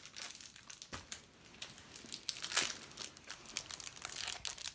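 Thin plastic wrapper crinkling and crackling irregularly as a small penguin eraser toy is handled and taken out of it.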